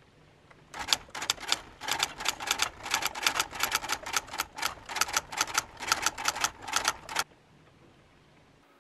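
Typewriter keys clacking in a quick, even run of strikes, about four a second. They start about a second in and stop about a second before the end.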